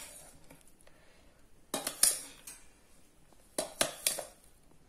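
Steel spoon clinking and scraping against dishes while ground drumstick-leaf powder is scooped into a bowl, in two short clusters of clicks about two seconds apart.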